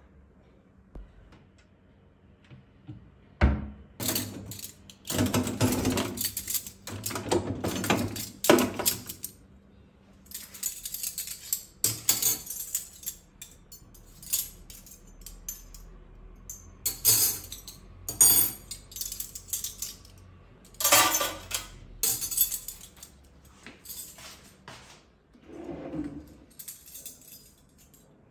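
Hard household objects clinking and clattering as they are handled, in irregular bursts of a second or two with quieter gaps between.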